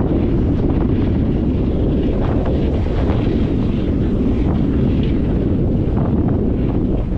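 Steady low rumble of farm machinery running, mixed with wind buffeting the microphone.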